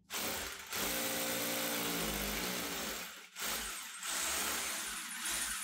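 Power drill driving a screw to fasten a wooden base piece to the wall. The motor runs in long pulls, dropping off briefly about half a second in and again after about three seconds.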